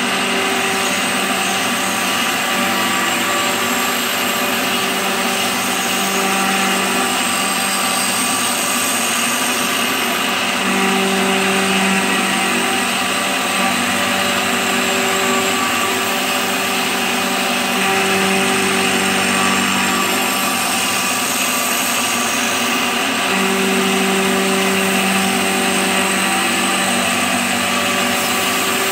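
CNC milling machine with an end mill cutting a pocket in a cast iron workpiece: steady spindle and cutting noise, with a low drone that comes and goes in stretches of a second or two.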